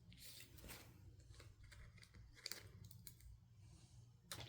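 Faint scattered clicks and light rustles of hands handling adhesive strips and small laptop parts, with a sharper click near the end.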